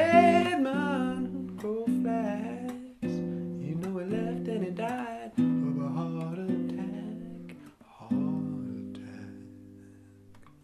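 Song accompanied by strummed acoustic guitar chords, with a voice singing over the first half. A final chord about eight seconds in rings out and fades away at the close of the song.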